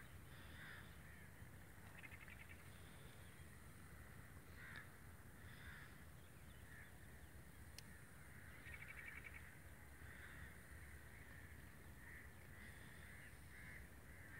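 Faint bird calls: scattered short calls and two longer, harsher calls, one about two seconds in and one about nine seconds in, over a low steady rumble.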